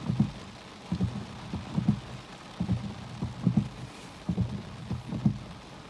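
Rain falling in a gusty wind: a steady hiss with low, irregular thumps one to three times a second.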